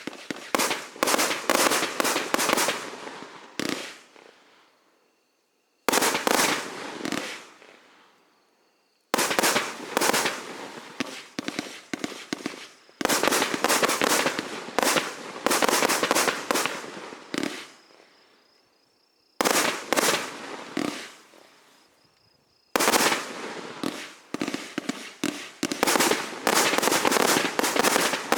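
A 108-shot fireworks cake firing in volleys of rapid sharp cracks and crackling reports, each volley dying away before the next starts after a second or two of quiet.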